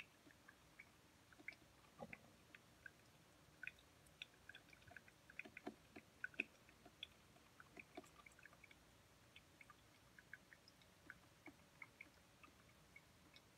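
Near silence, with faint scattered small clicks and ticks, a few slightly louder ones around the middle.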